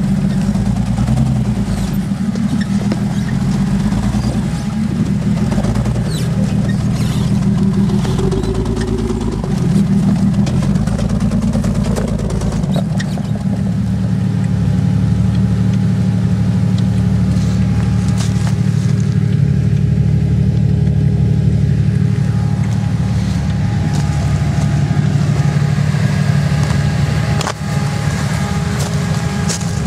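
Off-road 4x4's engine running under load as the vehicle crawls over rock and mud, its pitch shifting up and down for the first dozen seconds, then holding steady.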